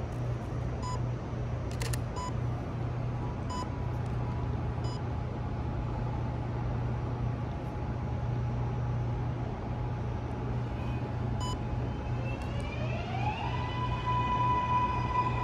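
MARTA rapid-transit train approaching the platform with a steady low rumble and hum. About thirteen seconds in, a high electric whine rises in pitch over about a second and then holds steady.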